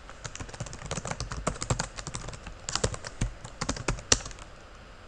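Typing on a computer keyboard: a quick run of keystroke clicks that ends about four seconds in with one harder keystroke.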